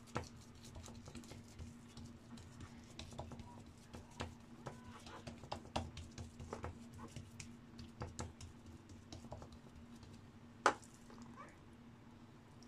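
Hands patting and pressing dough flat on a wooden board: faint, irregular soft taps and slaps, with one sharper knock about ten and a half seconds in, over a steady low hum.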